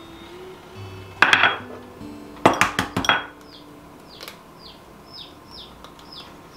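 Eggs knocked and cracked on the rim of a mixing bowl: one sharp knock about a second in, then several quick knocks and cracks a little later. From about four seconds in, an Icelandic chicken chick in an incubator cheeps: a string of short, high peeps, each falling in pitch, about two a second.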